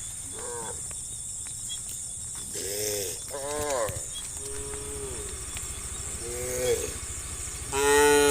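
Cows mooing in a string of short calls, one after another, that rise and fall in pitch; the loudest call comes near the end.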